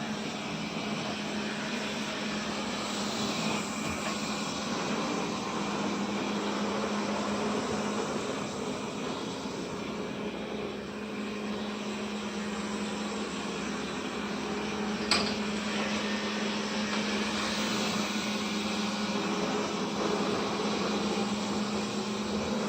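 Vacuum cleaner running steadily, its motor giving a constant hum under a wide rushing noise. A single sharp click about fifteen seconds in.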